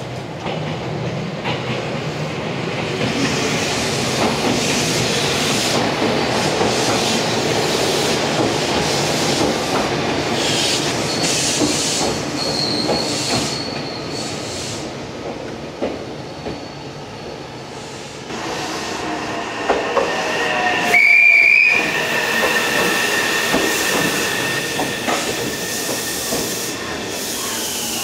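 Meitetsu electric trains running through a station: a steady rumble and clatter of steel wheels on rail. From about two-thirds of the way through come high wheel squeals, sharpest a little after 21 s, as a train moves slowly along the platform.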